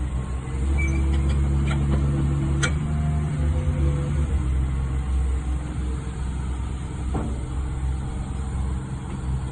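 Diesel engine of a Caterpillar 330CL hydraulic excavator running steadily, with a few sharp clicks or clanks over it.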